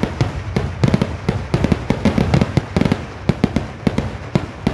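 Kerala temple-festival fireworks barrage (vedikkettu): a rapid, unbroken run of loud bangs, several a second, following one another without a break.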